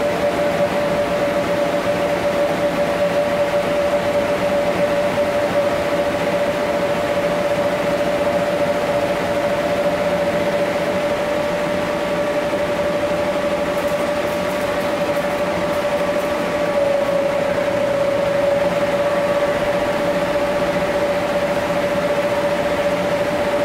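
Electric blower fans keeping bounce-house inflatables inflated, running steadily: an even rushing whir with a strong held hum, which sags slightly in pitch a little past the middle.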